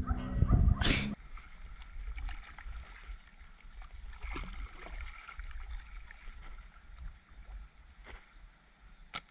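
Kayak on shallow, weedy water: faint water and hull noises, with wind rumbling on the microphone. A voice is heard briefly in the first second before it cuts off.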